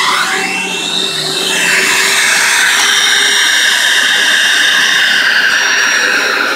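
Hoover self-propelled upright vacuum cleaner running with a loud whine. Its pitch dips and climbs back in the first couple of seconds, then holds steady.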